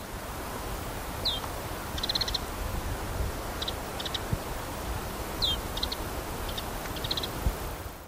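Lapland bunting calls: short, dry rattles of a few quick ticks, given several times, with two soft, downslurred, whistled 'choo' notes, one about a second in and one about five seconds in, over a low background rumble.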